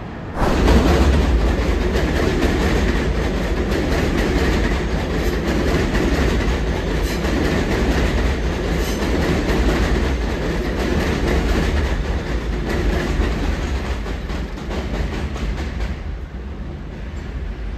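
New York City subway train running on an elevated steel structure overhead: a loud, steady rumble with rapid wheel clacks over the rail joints. It starts abruptly about half a second in and eases off slightly near the end.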